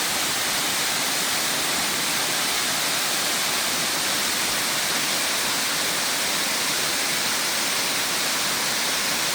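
Rushing water, a steady, even rush with no change throughout.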